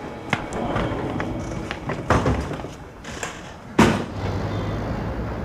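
Footsteps and rustling, then a car door slams shut a little under four seconds in, followed by a steady low engine hum.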